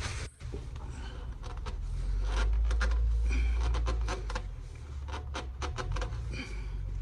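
Rag rubbing and scraping while wiping spilled engine oil off, with a series of short clicks and knocks from handling. A low rumble swells about two seconds in and fades again after about four and a half seconds.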